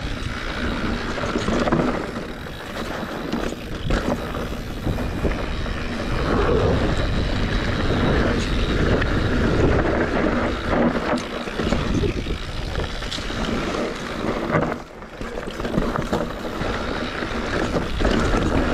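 Mountain bike riding fast over dry dirt singletrack: tyres rolling and crunching over dirt and roots, with frequent rattles and knocks from the bike and wind buffeting the microphone. The noise drops briefly about fifteen seconds in.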